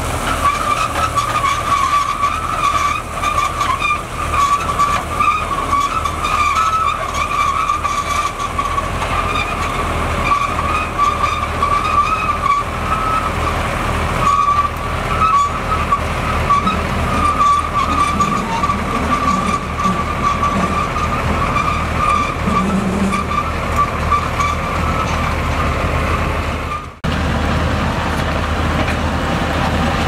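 Komatsu GD625A motor grader working, its diesel engine running steadily under load with a steady high whine over it. Near the end the sound cuts to another grader's engine running with a lower, steadier hum.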